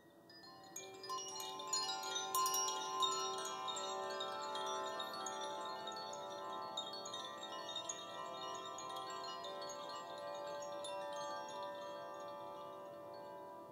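Four Koshi chimes, bamboo cylinders with tuned metal rods inside, tinkled by hand together: a dense shimmer of quick strikes over layered ringing tones. It swells in about a second in and slowly eases off.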